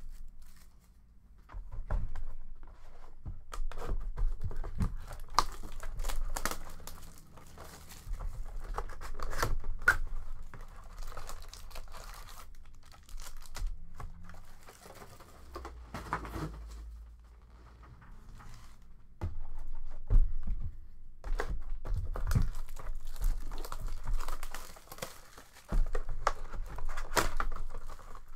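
Plastic shrink-wrap crinkling and tearing as a sealed cardboard box of hockey trading cards is unwrapped and opened, with the foil card packs rustling as they are handled. The sound comes in irregular bursts with short pauses between them.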